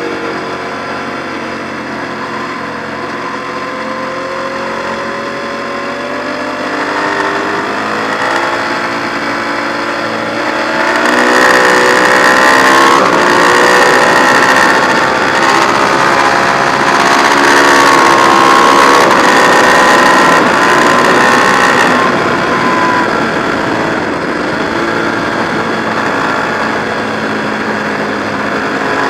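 Ducati 1098 superbike's V-twin engine running hard at track speed, its pitch climbing slowly over the first ten seconds. It then grows louder, with a rush of wind noise for about ten seconds, before easing off near the end.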